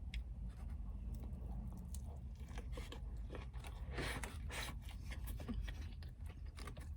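A person chewing fast food close to the microphone, with faint wet clicks of the mouth, over a steady low hum.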